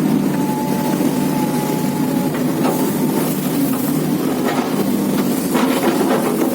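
Heavy diesel machinery working steadily: a SANY SY335C excavator's engine and hydraulics. There is a thin steady whine for the first two seconds and a few short scrapes or knocks later on.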